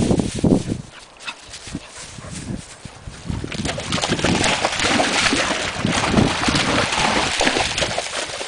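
A dog splashing as it runs through a shallow channel of peat-bog water, the splashing beginning about three and a half seconds in and continuing almost to the end. There are a few low thumps near the start.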